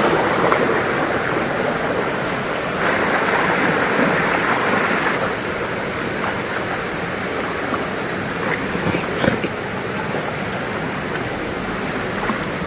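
River water rushing steadily over rocks, with a few faint clicks on top.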